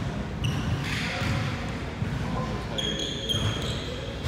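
Basketball bouncing on a hardwood gym floor, a low thump roughly every second. A short high squeak sounds about three seconds in.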